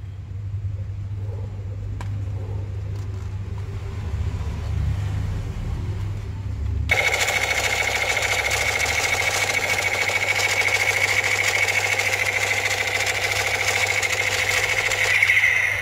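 Battery-powered toy gun's electronic sound effect through its small built-in speaker: a buzzy, high-pitched rapid rattle. It starts suddenly about seven seconds in, runs for about eight seconds, then stops. Before it there is only a low steady hum.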